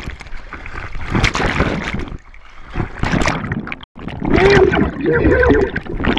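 Water splashing and sloshing around a GoPro held at the surface as a swimmer moves. After a sudden cut about four seconds in, there is a louder, muffled, wavering pitched sound.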